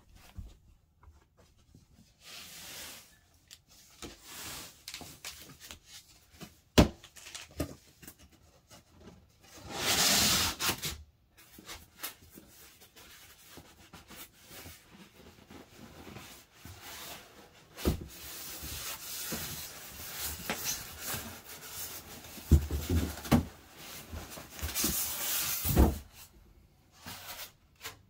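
Large cardboard box being opened by hand: cardboard flaps and sides rubbing and scraping in uneven stretches, with two sharp knocks.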